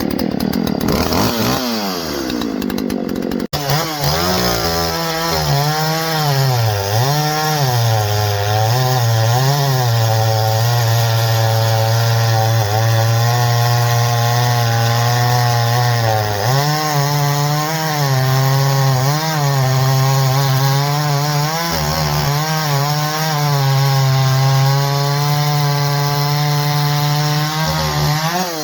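Poulan Pro 255 two-stroke chainsaw engine running loudly, its revs swinging up and down again and again with steadier held stretches between. This is its first run after porting, with the low-speed mixture set a little richer.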